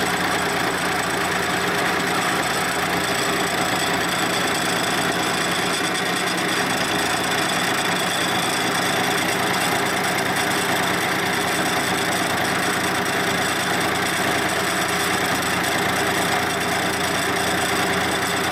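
Milling machine end mill cutting a flat into a heat-treated steel R-8 shank, with steady motor and cutting noise and a steady high whine. The steel is hard and the cut goes slowly.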